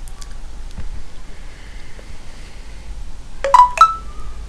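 Two short, bright ringing clinks about a third of a second apart, the second higher in pitch and ringing on briefly, after a few faint clicks.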